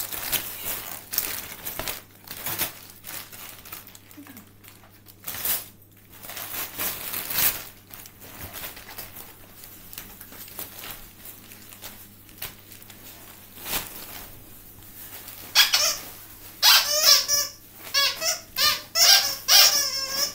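Christmas wrapping paper rustling and tearing as a present is unwrapped. Near the end comes a loud run of high-pitched, wavering squeaks, several a second.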